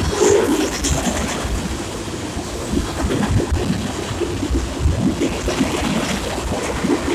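Freight cars of a passing train rolling by close at hand: a steady rumble of steel wheels on the rails, with irregular knocks and clanks.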